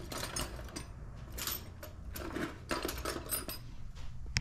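Metal hand tools clinking and rattling as they are rummaged through: a run of irregular short clinks and knocks, with a sharper knock near the end.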